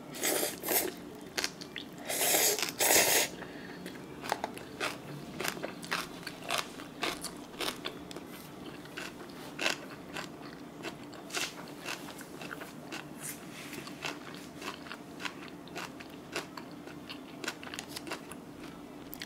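Close-up eating sounds of Buldak spicy stir-fried noodles with mustard-leaf kimchi: two noisy slurps near the start, then steady chewing with many short crunchy clicks.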